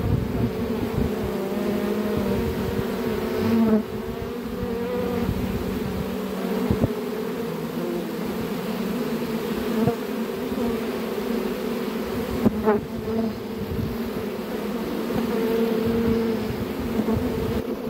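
A honeybee swarm clustered on and flying around a beekeeper's arm, buzzing as a loud, dense, steady hum whose pitch wavers slightly. A brief knock sounds about two-thirds of the way through.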